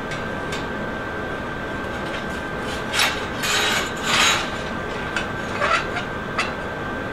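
A few short scrapes and rubs of steel bars and parts of a fabricated table frame being handled and fitted, over a steady shop hum.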